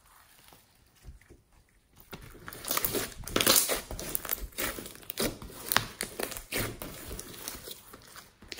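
Hands squeezing and kneading a large lump of glossy slime: wet squishing with dense, irregular crackles and pops as air is pressed out. It starts about two seconds in and is loudest soon after.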